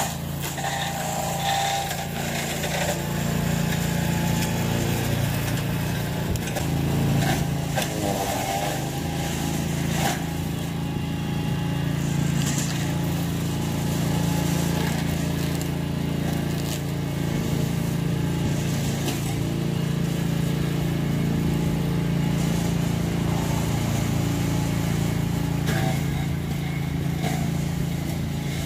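Engine of a homemade walk-behind brush mower running steadily at working speed while cutting brush, with a few sharp knocks scattered through.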